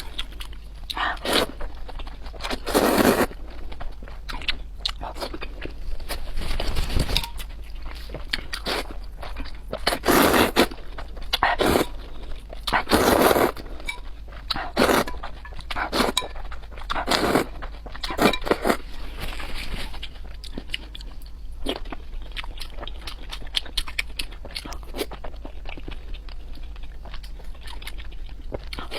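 A person biting and chewing crunchy food close to the microphone. The sound comes as irregular loud crunches through the first half or so, then softer, steadier chewing.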